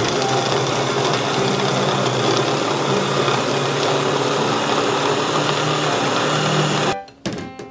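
Electric hand blender on a chopper bowl running continuously as it minces carrot, onion and green pepper; a steady motor whir whose pitch wavers slightly with the load. It cuts off about seven seconds in.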